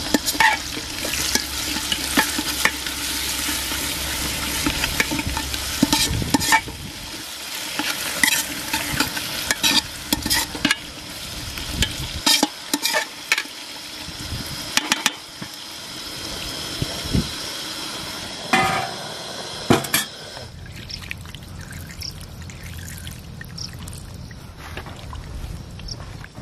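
Hand mixing chopped onions, garlic and spices in an aluminium handi: wet squishing and stirring over a steady hiss, with many sharp clicks and knocks against the pot's metal sides.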